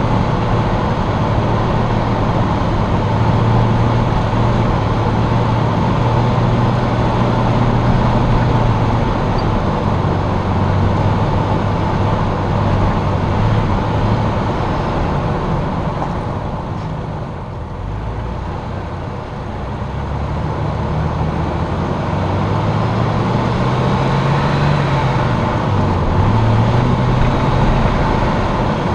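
Jeep engine running as the vehicle drives along a mountain road, with steady tyre and road noise underneath. The engine and road noise ease off for a few seconds about two-thirds of the way through, then pick back up, with a brief rise and fall in engine pitch near the end.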